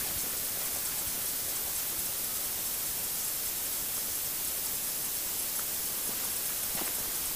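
Steady, even hiss with no distinct event, brightest in the high range: the recording's own background hiss in a quiet outdoor spot.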